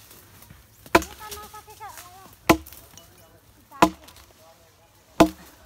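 Heavy chopping blows, four of them evenly spaced about one and a half seconds apart.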